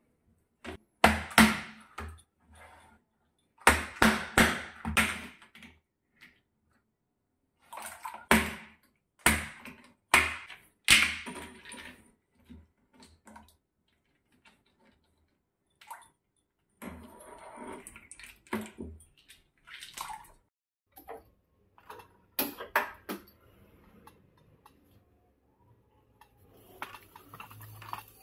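Ice cubes tipped from a plastic ice tray into a plastic tub of water, landing with several splashy bursts of clattering and splashing. Smaller knocks and handling sounds follow, and a faint gas-burner hiss comes in near the end.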